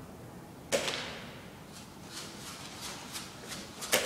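A sharp crack about a second in, then a run of fainter clicks and rustling about three a second, and another sharp crack near the end.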